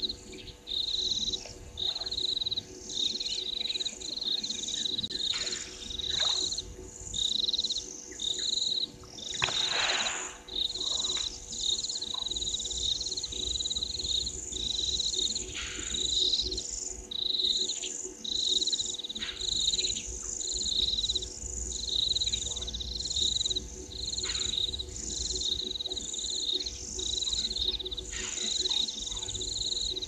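An evening chorus of calling frogs and insects: short high calls repeat about once a second without a break, with a few separate calls sliding down in pitch, the loudest about ten seconds in.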